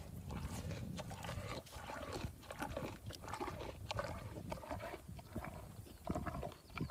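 A young hippo in a pool making animal sounds, with a run of short, irregular noises.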